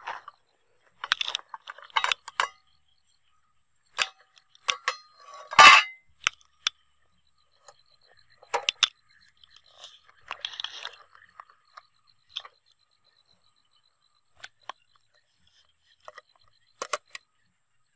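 Metal tongs and an aluminium pot lid clinking and clattering against the pot as the lid comes off and cooked crabs are lifted out, in scattered knocks with the loudest clank about six seconds in.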